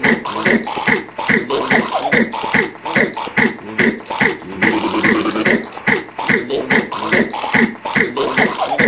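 A voice repeating a short, clicky syllable, "lick", in a fast, steady, unbroken rhythm of about two and a half strokes a second, like beatboxing.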